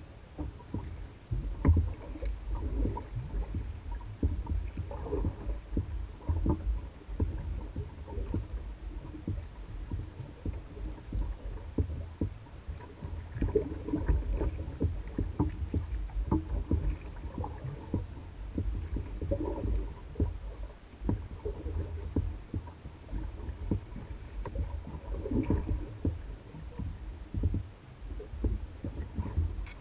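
Water lapping and gurgling against the hull of an Old Town Guide 119 canoe, with frequent small knocks and a low rumble, and a burst of sloshing every few seconds.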